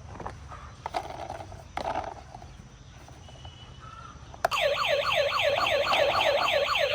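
Electronic siren in a fast yelp, about four rising-and-falling sweeps a second, cutting in suddenly about four and a half seconds in. Before it, only a few faint clicks and short tones.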